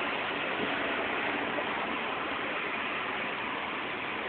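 Steady rushing noise on the open top deck of a moving double-decker bus: wind over the microphone mixed with the bus's engine and road noise.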